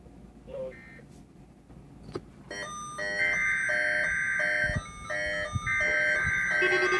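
Weather alert radios going off together for the weekly test: electronic alarm beeps start about two and a half seconds in, overlapping and pulsing about one and a half times a second, and a steady alarm tone joins near the end.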